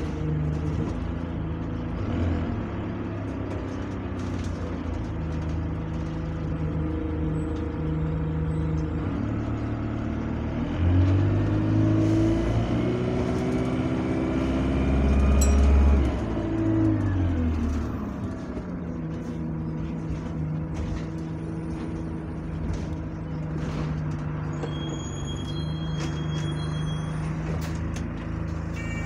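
Diesel engine of an Alexander Dennis Enviro200 single-deck bus heard from inside the saloon. Partway through, its note climbs and it runs loudest as the bus pulls hard, then the pitch drops away as it eases off. Just before the end, high beeps start up: the rear door's opening alert as the bus stops.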